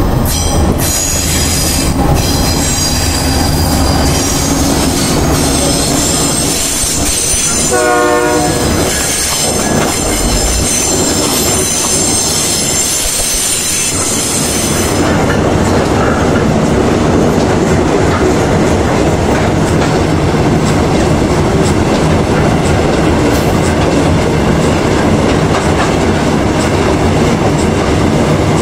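A GE ES44ACi diesel-electric freight locomotive passes, hauling loaded iron-ore gondola wagons. A high, steady wheel squeal runs through the first half and stops about fifteen seconds in, and a short horn blast sounds about eight seconds in. After that the wagons roll past with a steady rumble and wheel clatter.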